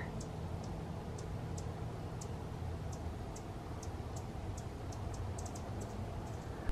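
Hummingbird chip calls: short, high ticks repeated irregularly, about two a second, over a faint low background hum.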